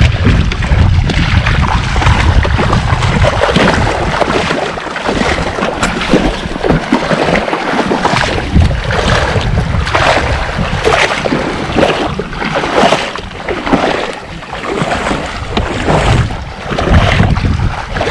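Water sloshing and splashing with wind buffeting the microphone; in the second half, splashes come roughly once a second.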